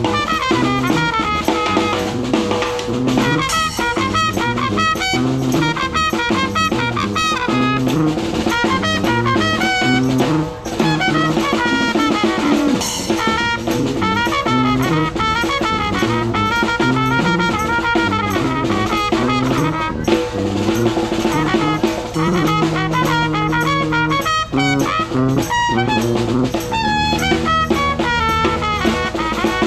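New Orleans-style brass trio playing live: trumpet on the melody, sousaphone carrying a stepping bass line, and snare drum with cymbal keeping the beat.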